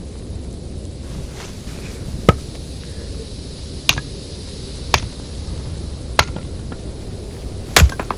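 Steady low wind rumble on the microphone, with five sharp knocks at uneven intervals, the loudest a little over two seconds in and near the end.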